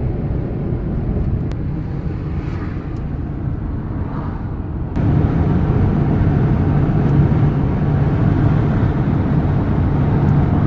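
Steady low rumble of road and engine noise inside the cab of a moving 2007 Dodge Ram 3500 turbo Cummins diesel pickup, jumping abruptly louder about five seconds in.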